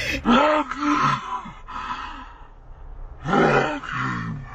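A woman laughing loudly in two main bursts, one just after the start and a longer one near the end, with a fainter stretch between.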